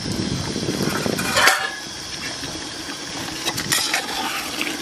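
Metal ladle clinking and scraping against a handi pot of mutton curry as the spices are stirred in, with a few sharp clinks about a second and a half in and again near the end.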